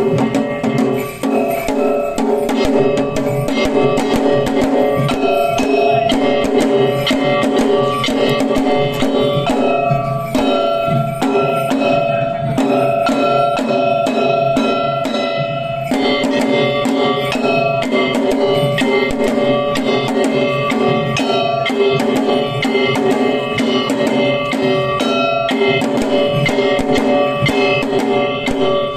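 Shishimai lion-dance percussion from Kagawa: drums and other percussion beaten in a fast, dense rhythm, with ringing tones held over the strikes. There is a brief break about halfway through, and then it carries on.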